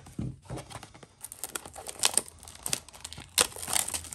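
Plastic wrapping on a trading-card blaster box crinkling and tearing as the box is opened by hand. It is a quick, irregular run of crackles that grows busier after about a second.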